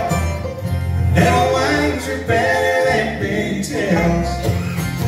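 Bluegrass band playing live: fiddle, five-string banjo, acoustic guitar, mandolin and upright bass, in an instrumental stretch between sung lines.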